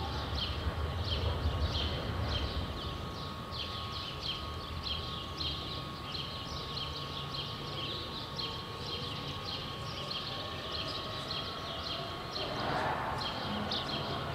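A tram's low rumble fades away over the first few seconds, under a steady run of short, high chirps or ticks, about three a second, with a faint steady tone beneath. A brief hiss swells and dies away near the end.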